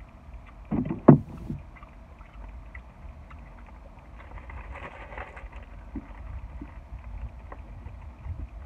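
Close-up chewing of a cheeseburger with the mouth open: wet lip smacks and small mouth clicks over a low background rumble. About a second in comes a short vocal sound, the loudest moment.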